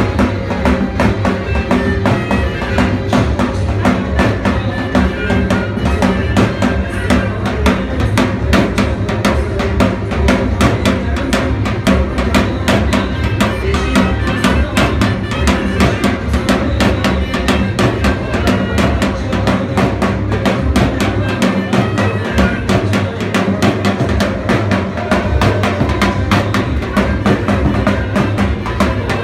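Loud attan dance music driven by drums beating a fast, steady rhythm, with a melody over it.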